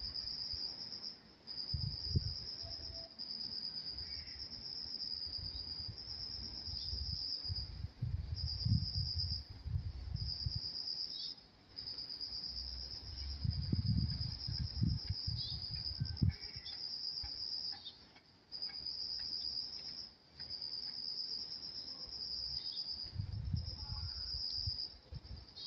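Insects trilling in repeated runs, each about a second long with short gaps between them, at a high, even pitch. A low rumble comes and goes underneath several times.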